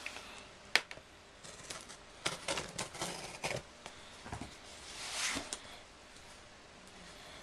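A cardboard shipping package being opened and unpacked by hand: scattered sharp clicks and crinkly rustling of packing material, busiest a couple of seconds in and again about five seconds in.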